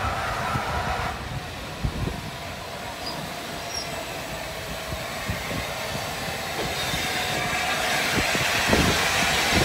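LNER A4 steam locomotive 60009 rolling slowly along the platform road, with a steady wheel squeal and a few low knocks. It grows louder as it comes closer.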